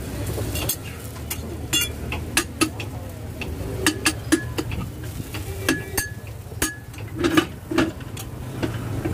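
Metal spatula clacking and scraping on a flat dosa griddle as a dosa is folded and cut into pieces: irregular sharp clacks, some with a brief ring, over a steady low hum.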